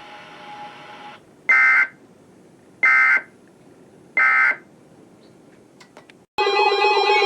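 Emergency Alert System end-of-message signal: three short, identical bursts of warbling digital data tones, about 1.3 seconds apart, marking the end of the severe thunderstorm warning broadcast. Near the end a loud, buzzing alert tone cuts in suddenly.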